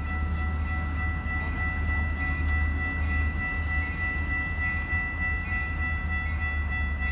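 Railroad crossing warning bell ringing steadily, its high ringing tones held without a break, over a low rumble as a train approaches.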